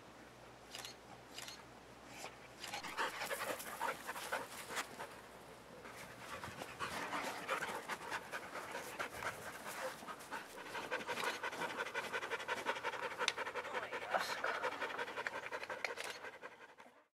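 A dog panting rapidly in quick, even breaths, starting about three seconds in, with a short lull near six seconds.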